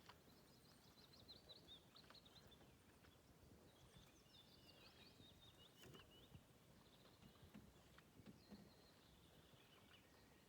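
Faint bird twittering: rapid runs of short, high chirps in three bouts, over a quiet background hush with a few soft clicks.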